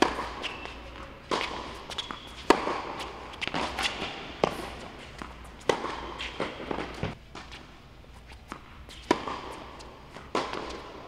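Tennis rally on an indoor hard court: racket strings striking the ball and the ball bouncing, a string of sharp cracks that echo in the hall. Between them come footsteps and brief sneaker squeaks.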